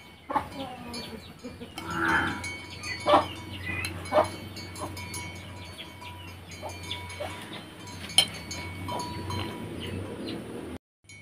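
Metal spoon clinking against a ceramic plate a few times as food is served onto rice, over a low, drawn-out drone in the background. The sound cuts off suddenly near the end.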